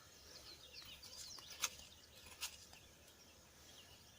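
Faint birdsong, short twittering chirps, with two sharp clicks about a second apart near the middle.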